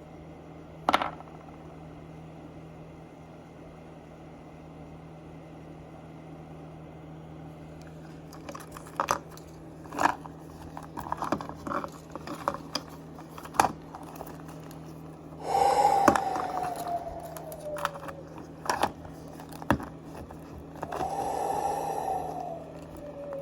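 A Zuru 5 Surprise plastic toy capsule and its wrapping being handled and opened: a sharp click about a second in, then scattered clicks, scrapes and crinkles. Two longer sounds falling in pitch come in the middle and near the end.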